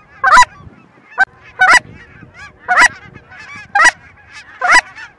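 Goose honking: loud, sharp honks about once a second, with fainter honking in between from a flock of geese circling overhead.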